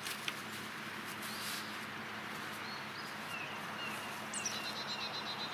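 Wild birds calling outdoors over a steady background hiss: short chirps from about halfway through, and a fast, even trill that starts near the end.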